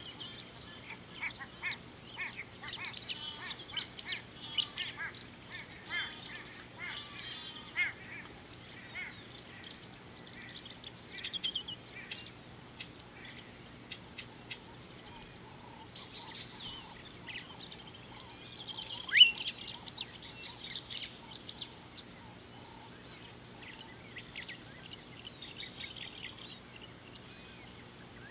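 Birds calling around a watering hole: bursts of many short chirps and calls in the first eight seconds and again later on, with one loud call a little past the middle that sweeps up sharply in pitch.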